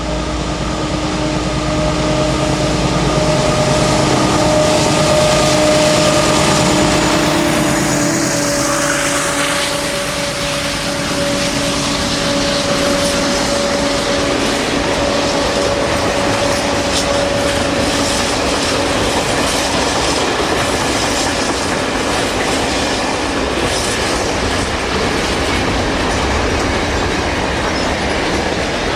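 A diesel-hauled freight train passing close by: the locomotive's engine drones loudest in the first few seconds and drops in pitch as it goes past. The freight wagons then roll by with a steady clickety-clack of wheels over the rail joints.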